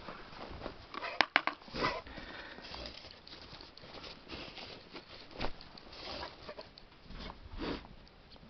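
Snow crunching and swishing underfoot in uneven bursts as feet wade through a deep drift, with two sharp clicks about a second in.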